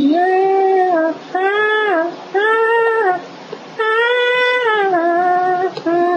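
A girl singing in about five held phrases of roughly a second each, with short breaks between them; the notes are drawn out and slightly bending in pitch, with no clear words.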